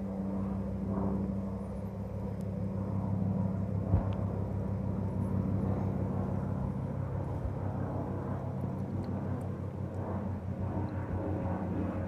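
AgustaWestland AW169 twin-turbine helicopter flying by: a steady fast rotor chop over a low engine hum, a little louder around the middle.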